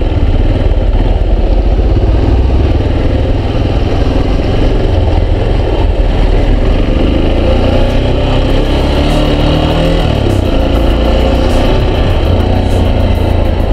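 Yamaha XTZ 250 Lander's single-cylinder four-stroke engine running as the motorcycle rides along. Its pitch rises and falls with the throttle and drops about ten seconds in as it slows.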